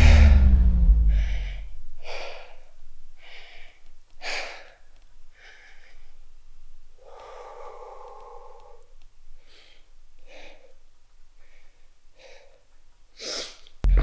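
A boxer breathing hard after exertion: separate gasping breaths about once a second, with a longer voiced exhale about halfway through. Music fades out at the start and cuts back in at the very end.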